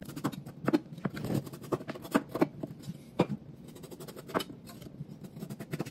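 Kitchen knife cutting the rind off a Charentais melon on a bamboo cutting board: irregular crisp cuts, scrapes and clicks of the blade through the rind, a handful of them sharper and louder.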